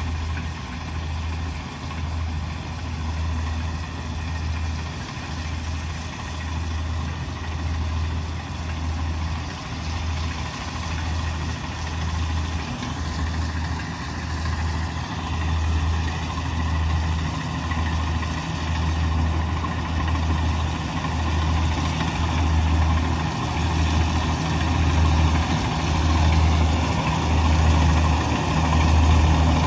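Kubota DC-70G Pro rice combine harvester working through the crop. Its diesel engine and threshing gear make a loud, steady drone with a low throb about once a second, growing louder toward the end as the machine comes closer.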